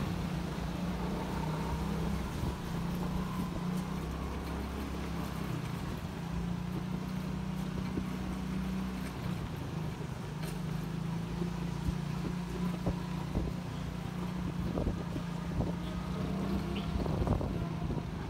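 Small motorcycle engine running at low, steady speed through a narrow alley, easing off briefly about halfway through. A few light knocks come near the end.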